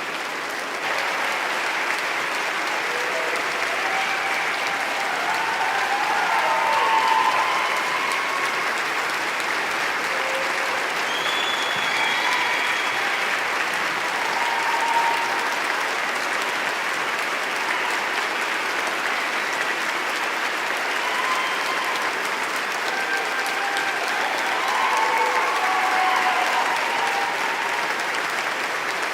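An audience applauding, a dense, steady clapping that swells slightly a couple of times, with a few voices calling out through it.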